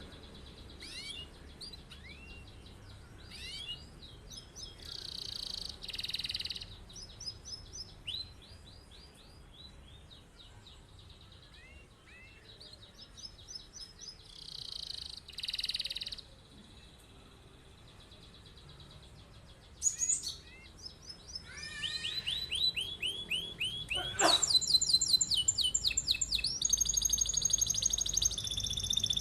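Male domestic canary singing: short chirps and brief trills at first, then about three-quarters of the way through a long, unbroken rolling song that grows louder.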